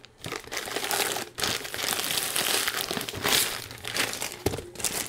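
Clear plastic packaging sleeve crinkling and rustling as it is handled and a rolled canvas slides inside it; the rustling eases off near the end.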